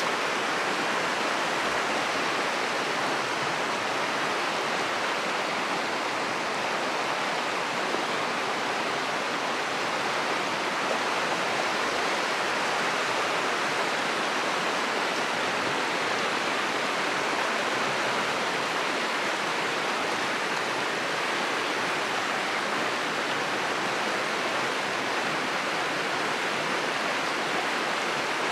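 Shallow river rushing over rocks and stones: a steady, even rush of water.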